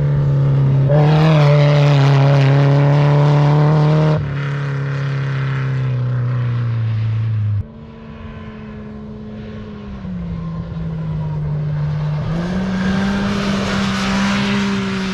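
Off-road race vehicle engines running hard at high revs, a steady droning pitch that breaks off abruptly about four seconds in and again about seven and a half seconds in. Later the pitch dips and then climbs again.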